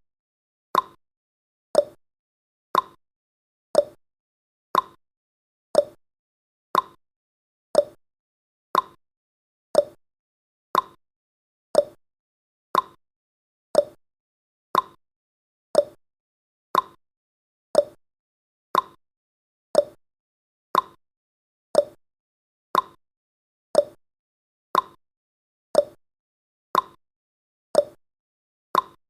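Countdown timer's clock-tick sound effect: a short, sharp tick about once a second, evenly spaced.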